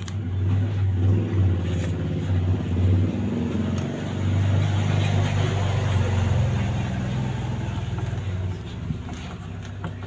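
A motor vehicle engine running, a steady low hum that eases off slightly near the end.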